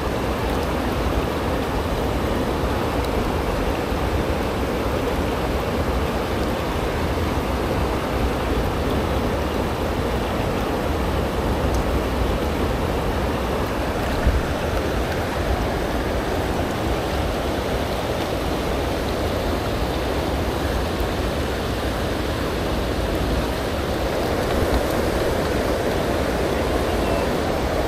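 Shallow, rocky river water running steadily over stones, an even rushing noise with a strong low rumble.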